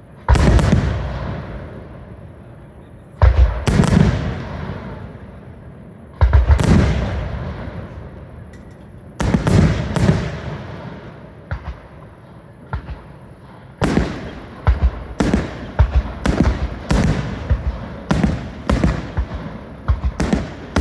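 Fireworks display: four heavy bangs about three seconds apart, each trailing off slowly, then from about fourteen seconds in a quicker run of bangs, roughly two a second.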